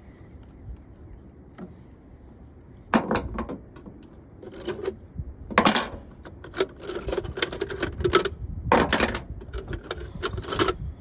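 Metal hand tools and parts clinking and rattling as they are picked up and handled, in irregular clusters of sharp clicks starting about three seconds in.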